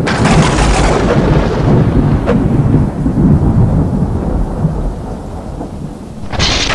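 Thunder and lightning sound effect: a sharp crackling crash at the start, then a continuous low rumble that slowly fades, and a second crash near the end.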